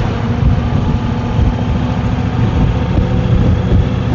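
Kawasaki VN 1500 Drifter's V-twin engine running steadily while riding on the road, a loud, even low pulsing.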